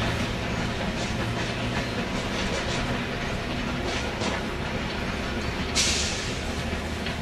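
A train of passenger coaches rolls slowly past over pointwork, wheels clicking over rail joints above a steady low drone. A short, sharp hiss cuts in about six seconds in.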